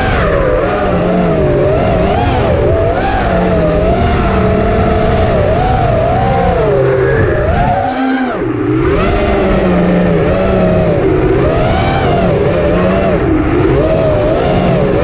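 FPV racing quadcopter's electric motors and propellers whining continuously, the pitch rising and falling all the time as the throttle is worked, with a brief dip about eight seconds in.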